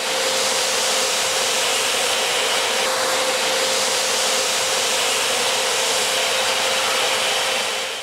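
Stihl wet and dry vacuum cleaner running steadily: a constant rush of suction air over a single steady motor hum.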